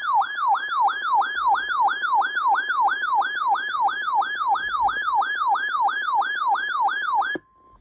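Electronic siren-style alert tone warbling up and down about three times a second, sounding a tornado warning alert on a weather radio. It cuts off suddenly near the end, leaving a brief faint steady tone.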